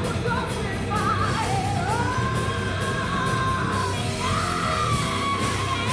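Live rock band playing: a woman sings into the microphone, holding two long notes, over electric guitars and drums with steady cymbal hits.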